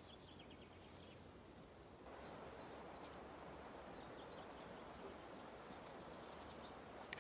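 Near silence: faint outdoor ambience, a soft even hiss that grows a little louder about two seconds in. A quick run of faint high ticks comes at the start, and a sharp click just before the end.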